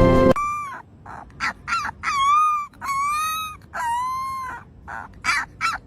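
Music cuts off, then a puppy gives about ten high whimpering cries in a row. Some are long, rising then falling, and a few short yelps come near the end.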